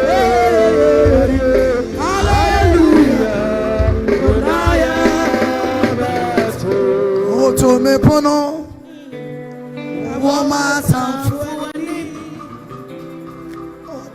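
Church worship music with singing over a heavy beat; about eight and a half seconds in the drums and bass drop out, leaving quieter singing and music.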